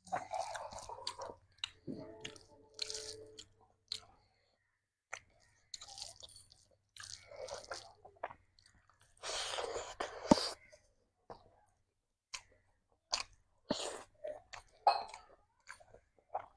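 A person chewing and smacking on a mouthful of rice and curry, in irregular wet bursts and sharp mouth clicks with short pauses between them.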